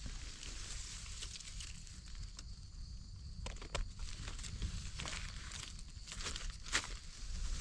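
Dry leaf litter and forest undergrowth rustling and crackling, with scattered sharp snaps, as someone moves through the brush.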